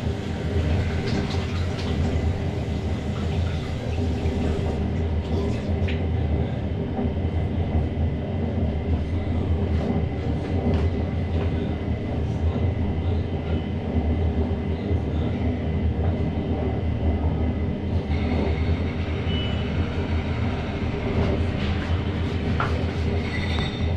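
Washing machine running, its motor turning the drum through a newly fitted rubber drive belt: a steady mechanical rumble with a low hum.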